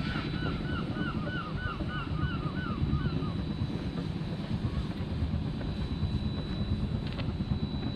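Wind buffeting the microphone, with a quick run of high squeaky chirps, about four a second, that stops about three seconds in.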